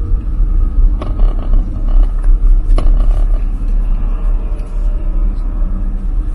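Car driving slowly, heard from inside the cabin: a steady low engine and road rumble, with two sharp clicks about one second in and again near three seconds.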